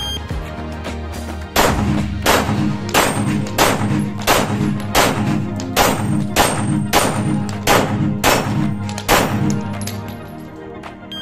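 9mm CZ P-10 SC pistol fired in a steady string of shots, about two a second, at steel plate targets, with the plates clanging and ringing as they are hit. Background music plays underneath.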